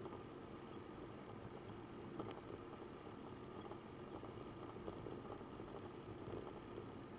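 Steady, muffled drone of a Piper Cherokee light aircraft's engine and airflow, with no change in pitch.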